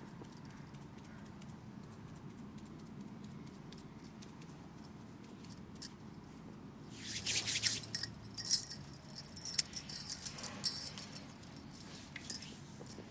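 Bursts of light, irregular jingling and rustling, starting about seven seconds in and dying down after about eleven seconds, over a faint steady hiss.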